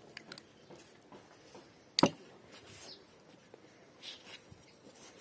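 Food preparation in a glass baking dish: faint clicks and light rustles as tomato paste is spooned in and spice sprinkled over it, with one sharp knock about two seconds in.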